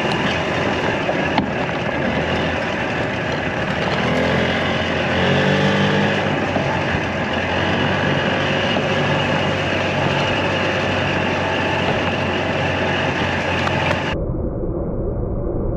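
Lowered golf cart running along a bumpy dirt trail: a steady motor and drivetrain sound under a wash of wind and rattling, with the pitch rising and falling briefly partway through. Near the end the sound abruptly goes dull, then there is a sharp knock.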